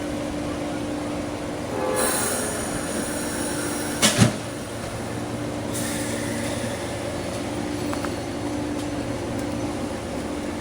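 A train rolling past with a steady low drone, joined by a high-pitched squeal about two seconds in and a sharp double bang about four seconds in.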